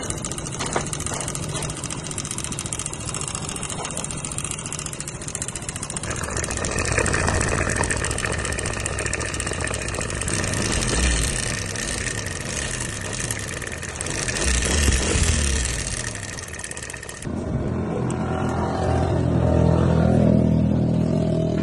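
Motorcycle engine running and being revved a few times, swelling and easing back. About three-quarters of the way through the sound changes abruptly to a lower engine note that climbs in pitch.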